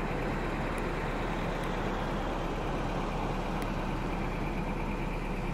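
Pickup truck engine idling steadily, heard from inside the cab.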